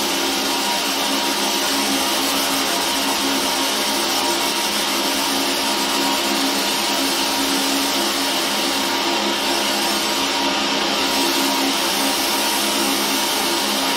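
Fiber laser engraver running as it engraves a steel sledgehammer head: a steady whirring buzz with a few constant hum tones, unchanging in level.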